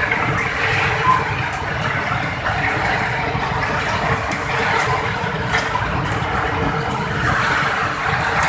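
Palm oil mill shell-and-kernel separation machinery running steadily: a loud continuous mechanical din with a steady hum and a few faint rattles.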